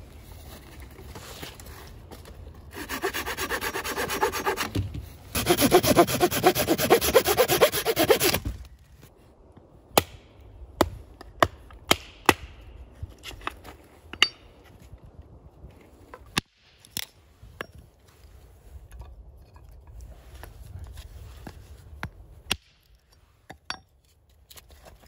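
Hand saw cutting through a branch with rapid back-and-forth strokes in two runs, the second louder. Then a scattering of sharp wooden knocks as a stick is split on a chopping block with a hatchet.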